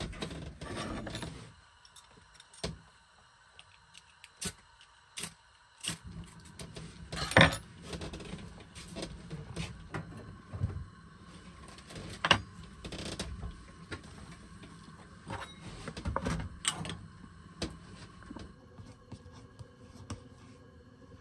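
Irregular clicks, knocks and rattles of objects being handled, loudest about seven and twelve seconds in, over a faint steady high hum.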